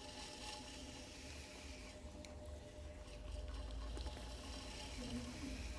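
Electric potter's wheel spinning with a low steady hum and a thin faint whine, while wet clay being centred rubs faintly under the potter's hands; a little louder from about three seconds in.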